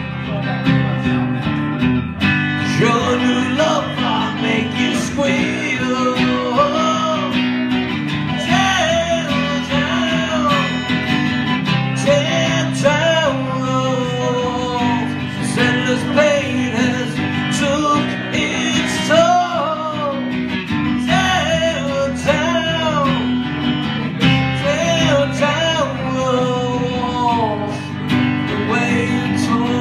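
Acoustic guitar strummed steadily, with a man singing a melody over it.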